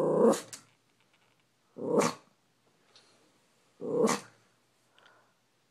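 Maltese dog's drawn-out growl breaking off just after the start, then two short, sharp barks about two seconds apart. The dog is worked up at a squirrel outside the window.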